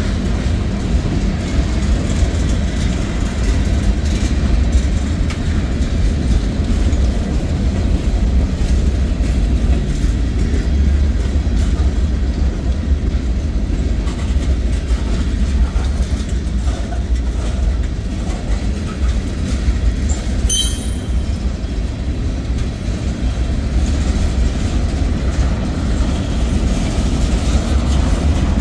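Freight cars of a mixed freight train rolling past, tank cars and boxcars: a steady low rumble of wheels on rail, with one brief high squeak about two-thirds of the way through.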